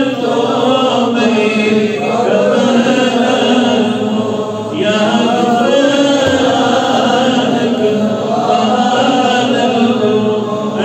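A man's voice chanting an Islamic devotional recitation into a microphone, unaccompanied, in long held, wavering melodic lines, with a short pause for breath about four seconds in.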